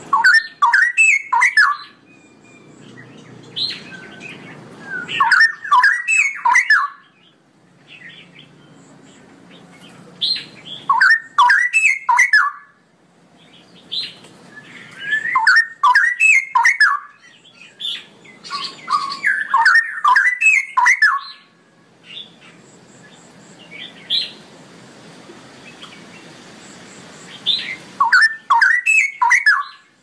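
Straw-headed bulbul (cucak rowo) singing in rich bubbling, warbling phrases of about two seconds each, six phrases with pauses of a few seconds between them.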